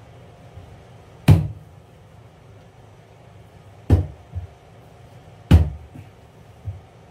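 Three sharp knocks with a dull thud in each, well spaced, on a raised plywood floor while vinyl deco tiles are being pressed down onto the glued subfloor on hands and knees.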